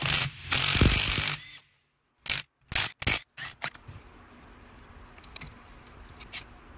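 Cordless impact wrench running in two short bursts, loosening the main bearing cap bolts on a BMC A-Series 1275 engine block. It is followed by a handful of sharp metal clicks and knocks.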